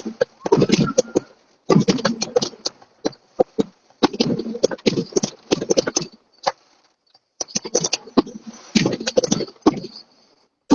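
Fireworks crackling and popping in rapid strings of bangs, four bursts of one to two and a half seconds each with short pauses between.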